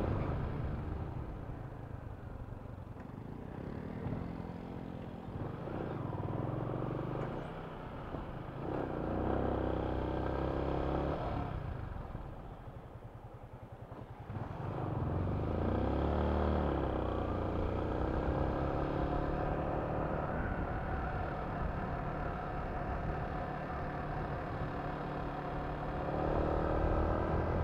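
Yamaha Sniper 155 VVA motorcycle's single-cylinder engine heard from on the bike while riding, the revs rising and falling. It drops quieter for a couple of seconds near the middle, then revs up and back down briefly.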